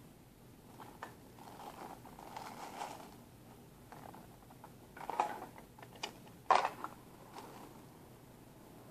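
Plastic toy pieces being handled and set down on a tabletop: scattered light clicks and knocks, the loudest a sharp clack about six and a half seconds in, with soft rustling in the first few seconds.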